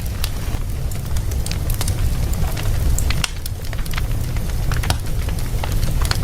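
Wood fire burning in a fireplace, crackling with many sharp, irregular pops over a steady low rumble.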